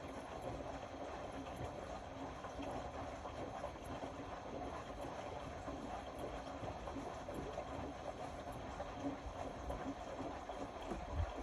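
Indesit Innex BWE 91496X front-loading washing machine running a wash, its drum turning with laundry and water sloshing, with a low thump near the end.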